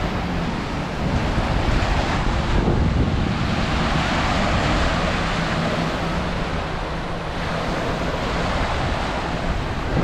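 Small sea waves breaking and washing up on a sandy beach, with wind rumbling on the microphone. The surf swells louder about a second in.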